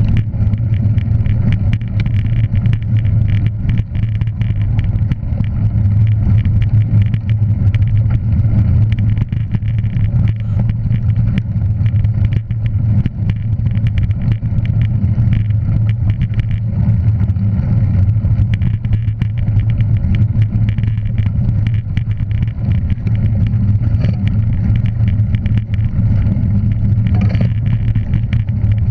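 A motor vehicle running steadily at constant speed: a loud, even low drone that holds one pitch, with no revving or gear changes.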